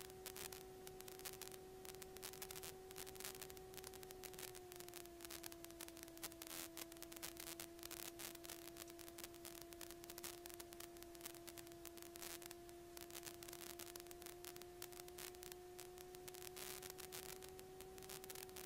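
A faint, steady whine in a light aircraft's intercom audio, one tone with a fainter one an octave above. It drops slightly in pitch about four and a half seconds in and creeps back up near the end, over faint hiss.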